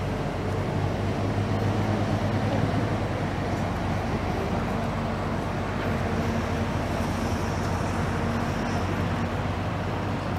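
Low, steady drone of a riverboat's diesel engine under way.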